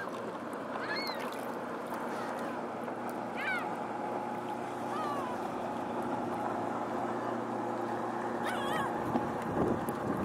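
Steady low drone of a lake freighter's engines carried across open water, with birds chirping every second or two. Near the end the drone breaks off and a short rumble follows.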